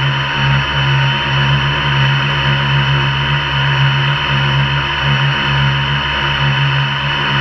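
MikroKopter quadcopter's electric motors and propellers running in flight with a steady low hum, with an even hiss over it.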